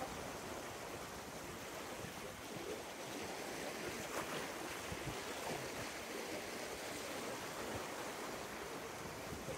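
Sea surf washing against shoreline rocks, a steady rush of water.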